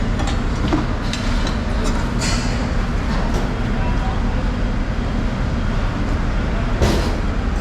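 Crowd ambience: background chatter over a steady low rumble, with a few light knocks and one sharper knock near the end.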